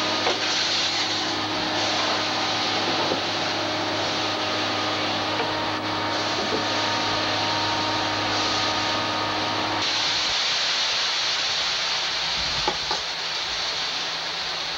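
A motor running steadily with a low hum, which cuts out about ten seconds in, over a constant hiss.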